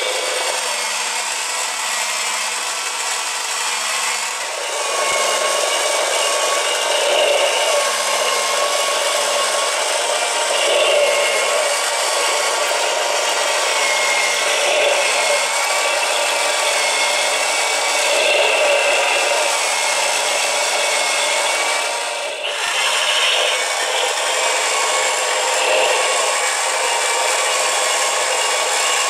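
Motorized 1:4-scale Porsche flat-six model engine kit running. Its small electric motor drives the plastic crankshaft, pistons, valves and belt, making a steady rasping whir with a faint wavering whine.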